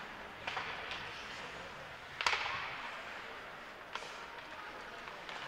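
Ice hockey play in a rink: four sharp cracks of stick and puck, the loudest about two seconds in, each with a short echo, over steady arena background noise.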